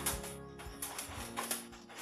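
Background music dying away, with a few faint clicks.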